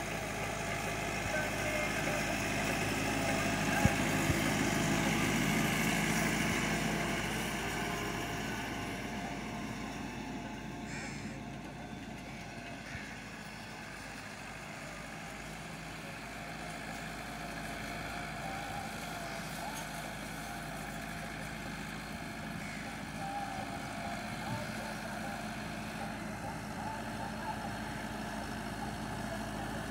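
Massey Ferguson tractor's diesel engine running steadily under load while pulling a disc harrow through dry soil. It is louder for a few seconds near the start, then eases to a quieter, even drone, with a single sharp knock about four seconds in.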